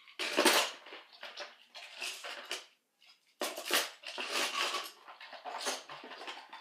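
Toy trains clattering and knocking together as they are handled and moved about, in irregular bursts with a short pause about three seconds in.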